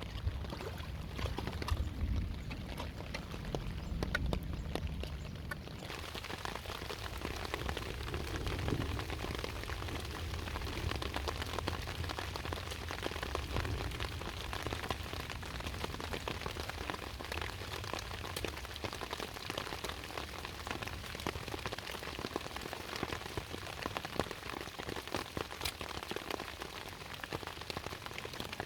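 Steady dense patter of water drops on a surface, brightening about six seconds in, over a low rumble in the first half.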